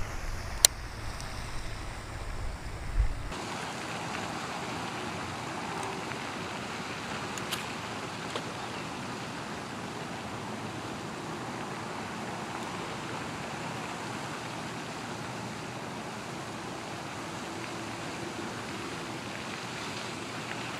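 Steady rushing hiss like outdoor wind or water noise on a camera microphone, with a few faint clicks. A low rumble and one sharp click in the first three seconds stop abruptly, and the even hiss carries on.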